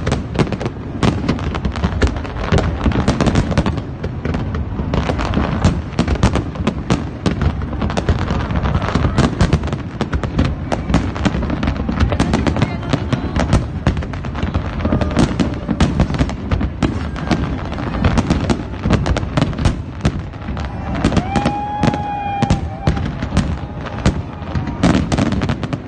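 Fireworks display: a dense, unbroken barrage of bangs and crackling from many shells bursting in quick succession, with a brief whistle-like tone about 21 seconds in.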